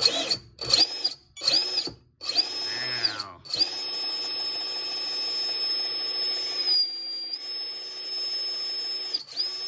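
Repeat Robotics brushless motor, driven by its speed controller, giving a high electric whine: three quick throttle blips, then a steady run of about seven seconds with a brief dip in pitch shortly before it stops near the end. The motor has so much torque that it moves the vise it is clamped in.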